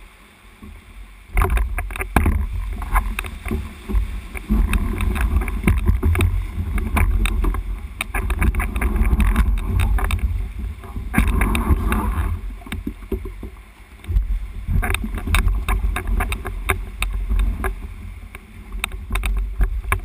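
Sea water sloshing and splashing around a kayak, with a deep uneven rumble and frequent sharp splashes. It is quieter for about the first second, then louder.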